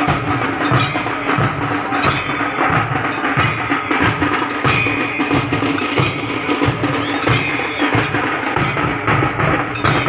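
Troupe of large barrel drums beating a loud, fast, driving rhythm, with sharp stick or cymbal strikes cutting through and a steady held note underneath.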